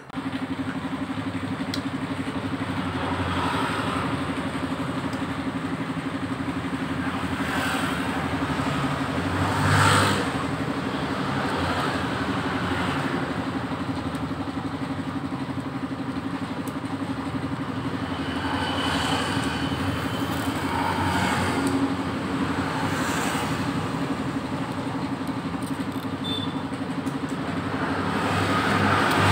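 Motor vehicles passing, swelling and fading several times, the loudest about ten seconds in. Under them runs a steady low engine hum that starts abruptly.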